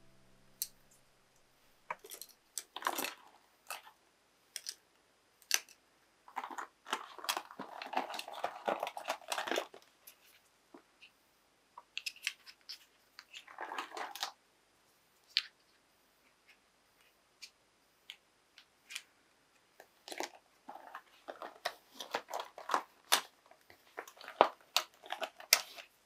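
Plastic pens and highlighters handled close up: scattered clicks and taps, with stretches of rustling as they are picked up, turned over and set down, in irregular clusters.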